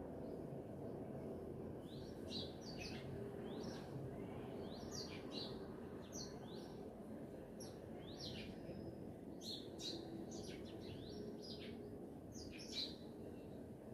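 Several small songbirds chirping and calling, with quick high chirps and short downward-sweeping notes coming every fraction of a second, over a steady low background hum.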